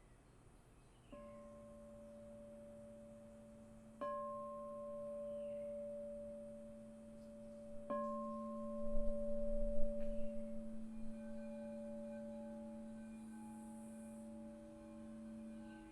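Quartz crystal singing bowls: a bowl is struck three times, a few seconds apart, and each strike rings on in a long, steady, pure tone. In the latter half a second set of higher tones joins in and sustains alongside it.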